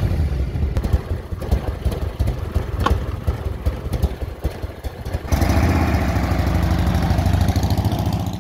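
Motorcycle engine running just after starting, with rapid low firing pulses; about five seconds in it becomes steadier and louder.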